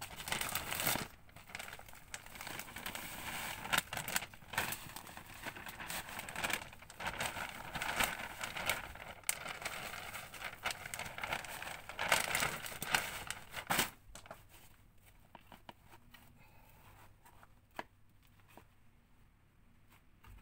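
Plastic potting-soil bag crinkling and rustling, with soil pouring out of it into a planter box. About two-thirds through this gives way to quieter, scattered rustles of gloved hands working the loose soil.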